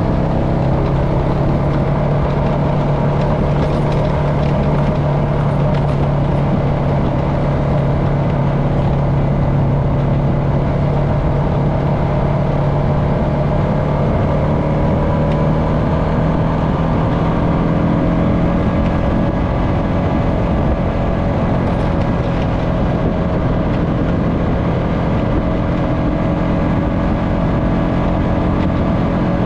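Honda FourTrax Foreman ATV engine running at a steady cruise, its pitch drifting only slightly, over a constant rush of wind and tyres on the dirt road.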